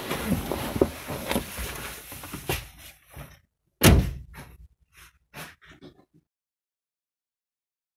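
Car door slammed shut about four seconds in, after a few seconds of rustling and shuffling as someone climbs out of the car. A few light clicks and knocks follow.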